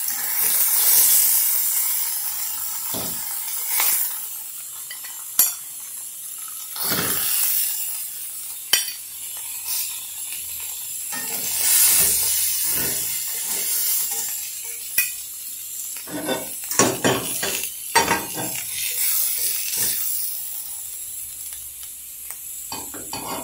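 Hot fat sizzling in a frying pan as pieces of fried meat are lifted out with a fork, with scrapes and clinks of the fork against the pan. The sizzle swells and fades several times.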